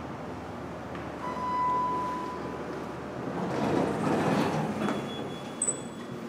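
A single steady electronic chime, held about a second, from a Thyssenkrupp hydraulic elevator announcing the car's arrival. A couple of seconds later its sliding doors open with a spell of mechanical noise, and there is a short click near the end.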